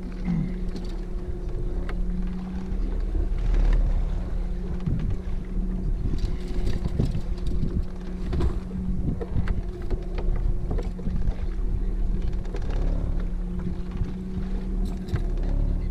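Boat motor running with a steady hum, with water slapping and knocking irregularly against the hull.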